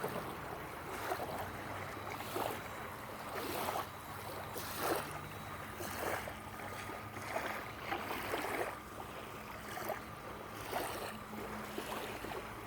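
Water lapping and splashing in short swishes about once a second, over a steady low hum.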